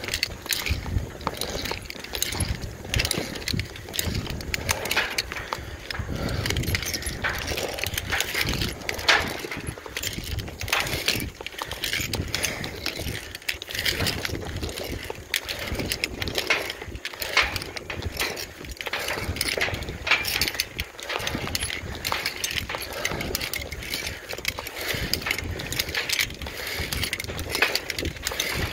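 Metal climbing hardware clinking and clanking in irregular clicks as a climber moves on a steel tower, over an uneven low rumble.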